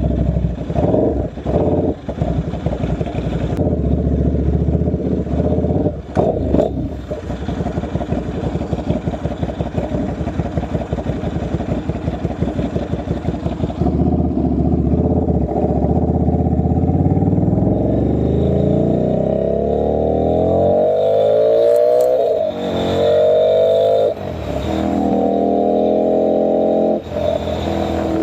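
Buell 1125R's 1125 cc V-twin through an open custom muffler. It runs at low revs with a lumpy, pulsing note for about the first half, then accelerates hard, its pitch rising through several gears with short breaks at each upshift. Very loud, with no dB killer fitted.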